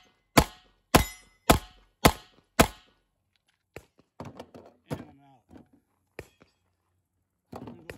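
9mm pistol fired rapidly, five shots about half a second apart ending the string about three seconds in.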